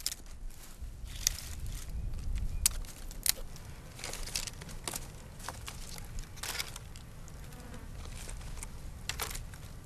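Dry sticks and thorny brush snapping and rustling as firewood is gathered and broken by hand: irregular sharp cracks every second or so over a low steady rumble.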